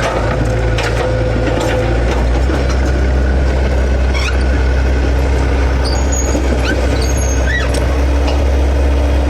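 Komatsu excavator's diesel engine running steadily with a deep, even hum, with a few brief squeaks and clicks over it.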